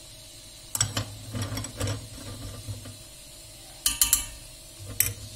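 A metal spoon clinking and scraping against a stainless steel pot as lumps of tail fat are tapped off it onto cooked lamb. There is a run of quick knocks about a second in, then a few more sharp clinks near the end.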